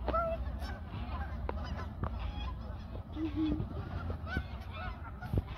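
A large flock of geese honking: many short, overlapping calls scattered throughout.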